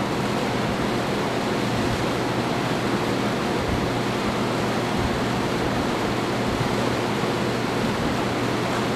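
Steady, even rushing noise with a faint low hum underneath, unchanging throughout.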